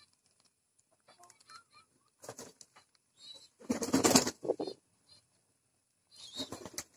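Domestic pigeons feeding close by: light scuffling and pecking, then a loud flurry of flapping wings about four seconds in and a shorter one near the end.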